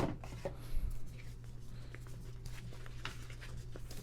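Paper rustling with small taps and clicks as a folded poster is handled and opened out, over a steady low hum.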